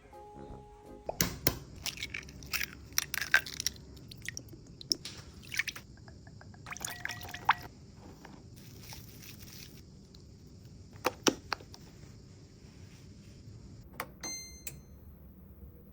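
Kitchen food-prep handling sounds: scattered sharp clatters and knocks of utensils and containers, with some liquid being poured or stirred. A short electronic beep sounds near the end.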